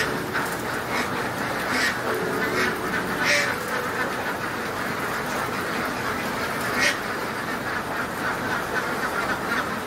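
A large flock of laying ducks quacking in a continuous chatter, with a few louder single calls standing out.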